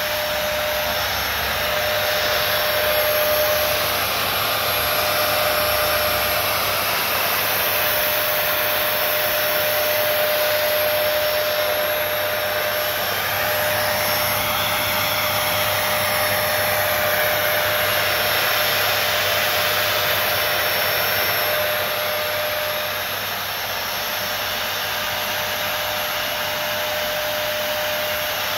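Delta ULV cold fogger's electric blower motor running steadily while it sprays a disinfectant mist: a constant rush of air with a steady whine.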